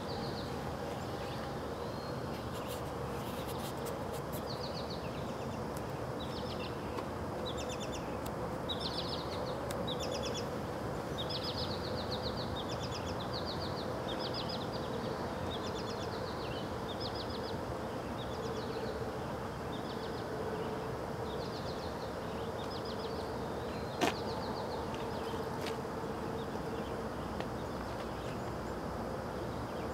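Small birds calling: short, high, rapidly trilled chirps repeated every second or so, thinning out in the last third. A steady background hum runs underneath, and there is a single sharp click about 24 seconds in.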